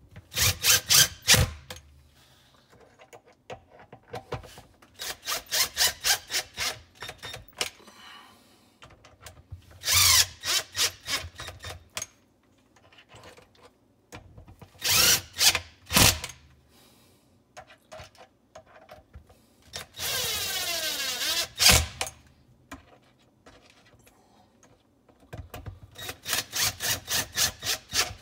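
Mastercraft cordless drill turning screws in a dishwasher's plastic sump cover, in about six short runs with pauses between. One longer run a little past two-thirds of the way through shows the motor's pitch sliding as its speed changes.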